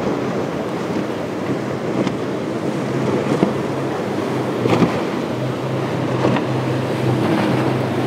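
Outboard boat motors running with a steady low hum that comes in about three seconds in, over the rush of surf and wind buffeting the microphone.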